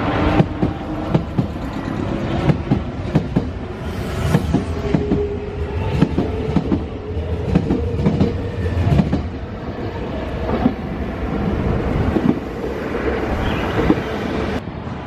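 Nankai electric train running past, its wheels clacking over rail joints in a string of sharp knocks over a steady motor hum and a held tone.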